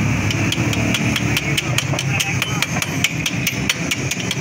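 Rapid light metal-on-metal taps, about five a second: a steel tool striking the fresh weld on a motorcycle kick-start lever, chipping off the welding slag.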